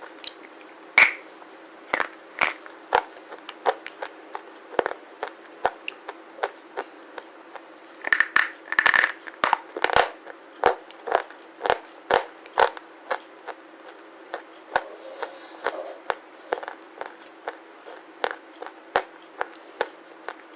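Close-up crunching of hard slate pencils being bitten and chewed: a rapid series of sharp, dry cracks, densest in a flurry about eight to ten seconds in.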